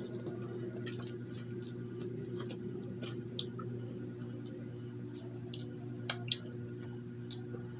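Eating sounds of fried chicken being eaten by hand: scattered small wet mouth clicks and squishes, with two sharper smacks about six seconds in as fingers are licked. A steady low hum runs underneath.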